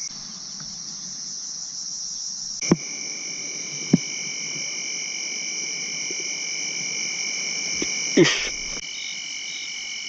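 Night chorus of crickets and other insects: a steady high-pitched trilling, with a second, lower steady trill joining about three seconds in. A few sharp clicks cut through, the loudest about three and four seconds in, plus a short knock about eight seconds in.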